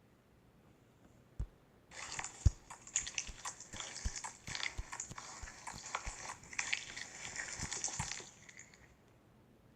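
Slime being squished and worked by hand, a dense run of small crackles and pops lasting about six seconds from about two seconds in, with a few soft knocks.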